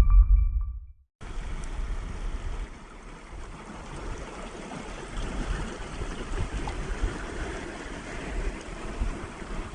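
Music ends about a second in, then a steady, uneven rush of sea surf and wind on the microphone.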